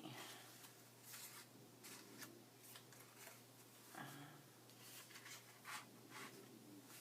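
Faint rustling and light taps of paper pieces being handled and pressed into place.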